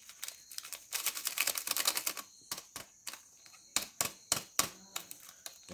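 A spoon clicking and scraping against a cup while coffee powder is added: a quick rattling run of ticks about a second in, then a string of separate sharp clicks.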